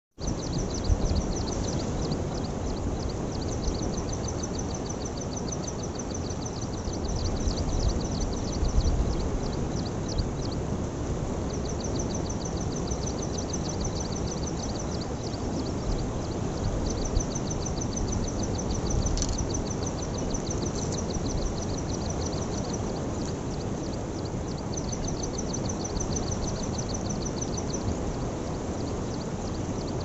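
Outdoor ambience: a steady low rushing noise, with a fast, high, evenly pulsed chirping trill that runs in long stretches broken by short pauses.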